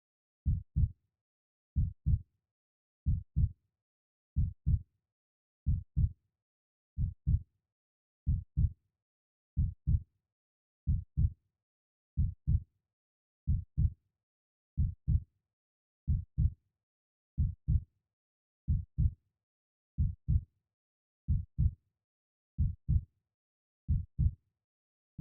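Heartbeat: slow, even pairs of short low thumps, one pair about every 1.3 seconds, with silence between the beats.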